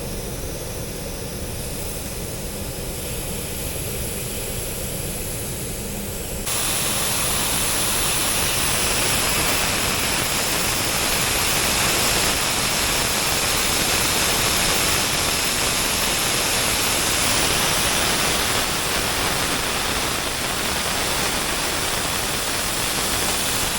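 Pressurised nitrogen being vented out of the refrigerant lines through the gauge hoses, releasing a pressure test after a leak was found at the TXV connection. A lower steady rush jumps suddenly, about six seconds in, to a loud, even hiss that holds steady.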